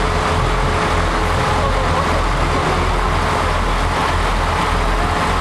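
Fishing boat's motor running steadily under way: a constant low hum with an even rushing noise over it.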